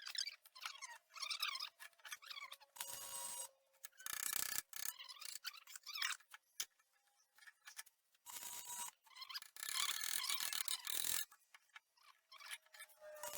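Electric welding on a broken gear-shift lever: short bursts of crackling arc, about six in a row with pauses between them.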